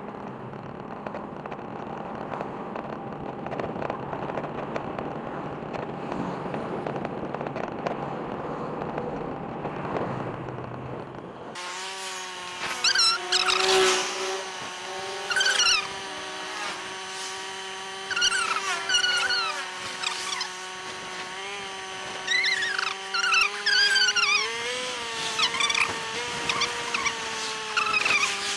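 Motorcycle being ridden on a flat tyre. A steady rushing noise gives way, about a third of the way in, to a steady engine tone with repeated high, squeaky chirps over it.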